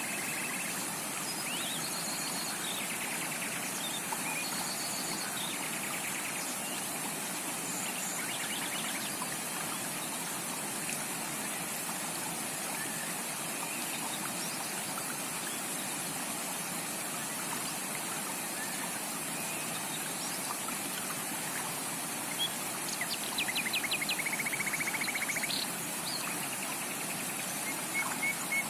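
Steady rushing and trickling of a tropical rainforest stream, with birds calling now and then over it. Near the end a bird gives a rapid run of repeated notes for a couple of seconds, the loudest sound.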